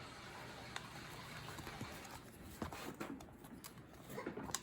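Faint scattered clicks and taps as a tire jack levers a skinny bicycle tire's bead onto a narrow rim, a little at a time.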